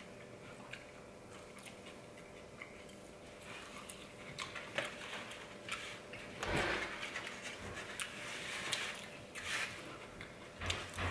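Quiet eating sounds: a plastic fork scraping and clicking in a plastic takeout bowl, with soft chewing. A few louder swishes come in the second half.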